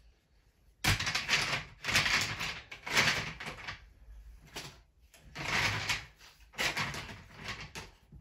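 Plastic Playmobil train track pieces being handled and sorted, rustling and clattering in several bursts of about a second each, with a quieter stretch midway.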